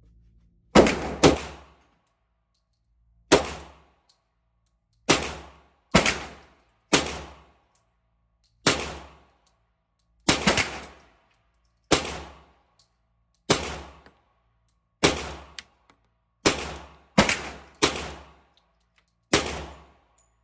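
Glock 21 .45 ACP pistol in a micro conversion kit firing about fifteen single shots at a steady, unhurried pace, with each report ringing out briefly. A few of the shots come in quick pairs.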